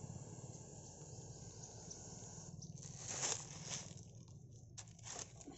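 Dry leaf litter rustling and crunching in a few short bursts, the loudest about three seconds in and more around five seconds, over a faint low hum that fades in the first second.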